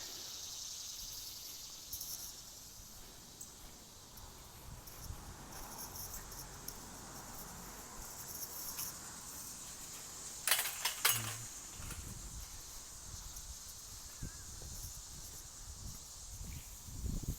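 Insects chirring steadily in a high, continuous drone, with a quick cluster of sharp clicks about ten seconds in.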